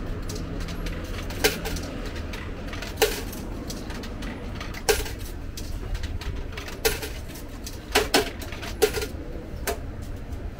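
Sharp clinks and knocks of stainless-steel boxes and trays being handled inside an open vending machine: about eight at irregular spacing, over a steady low hum.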